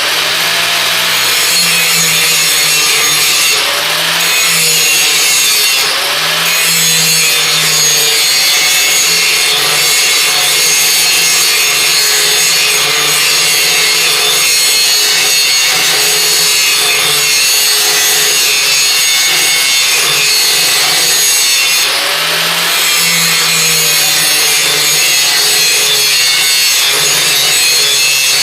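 Angle grinder grinding the bevel of a steel brush hog (rotary cutter) blade clamped in a vise. It runs steadily, with slight dips in its pitch as it is pressed into the metal.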